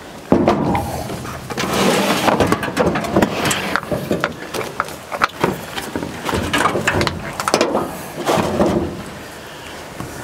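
Irregular clanks, clicks and rattles of hand tools and metal parts being handled, starting sharply just after the beginning and going on in bursts with short pauses.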